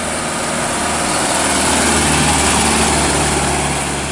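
Mitsubishi diesel light truck driving past: engine running and tyres on the road, growing louder to a peak about halfway through, then fading as it moves away.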